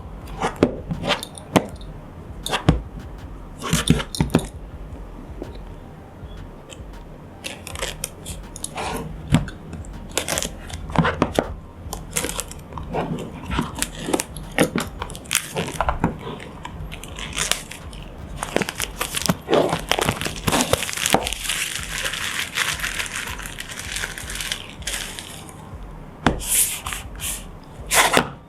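Plastic wrap being torn and crumpled off a product box, with scattered taps and rustles of handling. A longer stretch of crinkling comes a little past the middle.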